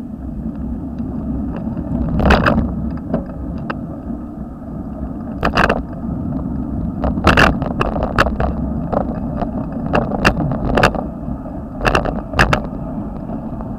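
Steady low rumble of a bicycle being ridden, picked up by a camera mounted on the handlebars, with about ten sharp knocks at uneven times, most of them in the second half.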